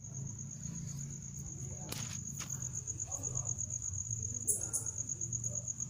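Cricket trilling steadily, a high, rapidly pulsing note, over a low hum, with two sharp clicks about two seconds in.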